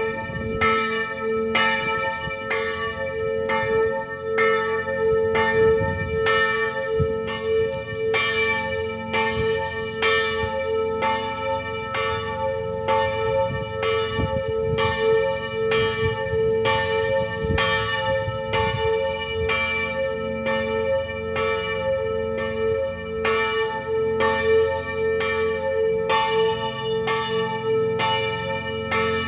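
Church bells ringing in a continuous peal, a fresh strike about every two-thirds of a second over a steady, lingering ring.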